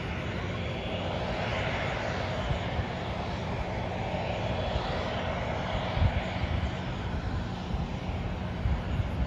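Jet engines of an ANA airliner running on the runway: a steady rush and whine with an uneven low rumble underneath.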